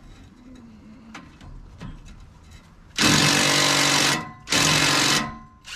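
Compact cordless impact wrench hammering in two bursts, the first about a second long and the second shorter, a little over halfway through. It is not strong enough to break the exhaust pipe's fastener loose.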